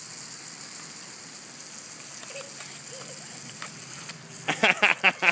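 Garden hose spraying water onto a plastic ride-on toy and wet concrete, a steady hiss. Near the end a young child squeals in several quick, loud bursts.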